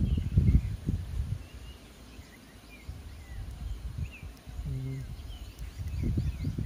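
Birds chirping in the roadside scrub, with bursts of low rumbling noise in the first second or so and again near the end, and a brief low tone about five seconds in.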